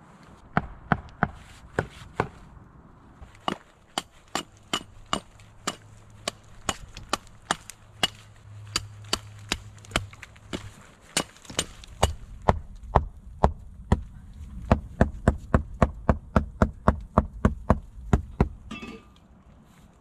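Hatchet chopping wood: a long run of sharp blows, about two a second, quickening to about three a second in the second half, with a short pause in the middle, and stopping shortly before the end.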